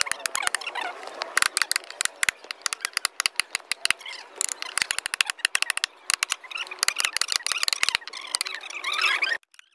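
Wood-carving chisel being worked through a wooden board in rapid, sharp taps, many a second, with the crackle of wood chips splitting off. The tapping cuts off suddenly near the end.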